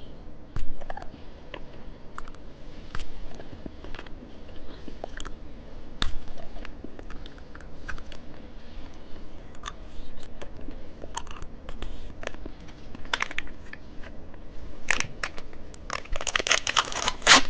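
Chewing and biting watermelon bubble gum, with scattered crackles of a candy wrapper; near the end comes a dense spell of wrapper crinkling.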